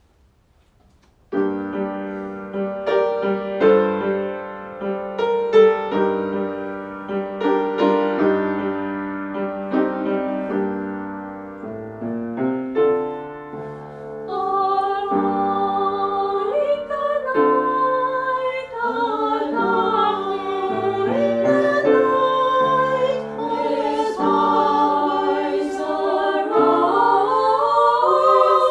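Piano introduction of struck chords, then a small ensemble of women's voices comes in about halfway, singing with vibrato over the piano accompaniment.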